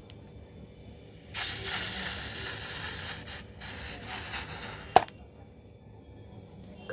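Slime and air spraying out of a cut, inflated balloon with a loud hiss in two spurts, about two seconds and then just over a second, followed by a single sharp snap about five seconds in.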